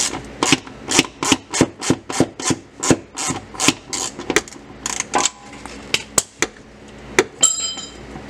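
Ratchet wrench worked in quick back-and-forth strokes, about three a second, backing out a 13 mm bolt that holds the driveshaft's stock center support carrier. The strokes slow and thin out after about five seconds, and a short metallic ring of loose metal sounds near the end.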